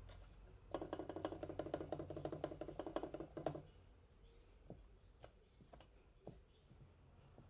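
Conn Connstellation 52B trumpet piston valves pressed rapidly, a fast run of faint clacks with a low tone under them lasting about three seconds. After that come a few single knocks as the slides are handled.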